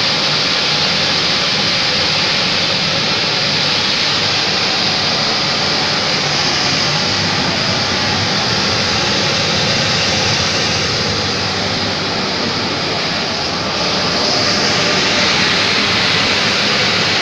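Vapour absorption chiller plant machinery running: a loud, steady rushing hum with no breaks.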